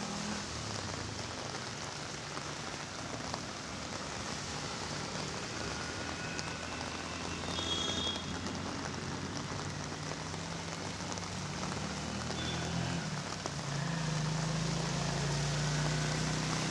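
Heavy rain and floodwater pouring down and rushing over a road, heard as a steady hiss. A low hum runs underneath and grows louder near the end.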